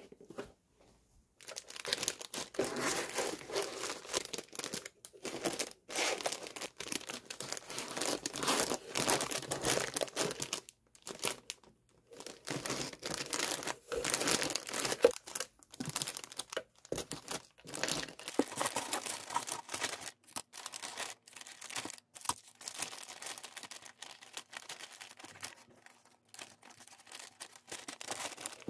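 Clear plastic packaging bags, tissue paper and a cardboard box crinkling and rustling as they are handled by hand while packing a shipping box, in irregular bursts with short pauses.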